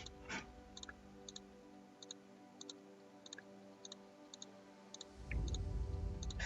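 Faint background music with a regular ticking beat, about one and a half ticks a second over a steady drone. A low rumble comes in about five seconds in.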